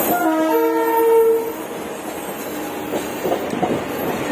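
Train horn sounding a chord of several steady tones for about a second and a half, over the running noise of a train on the tracks.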